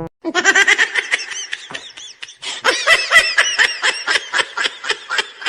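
High-pitched laughter: a rapid string of ha-ha pulses in two long bouts, with a short break about two seconds in.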